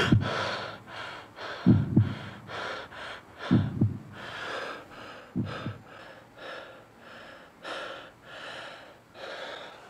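A man breathing hard and fast in short, gasping breaths, about two a second, that slow and grow fainter. A few dull low thumps, some in pairs, sound under the breathing in the first half.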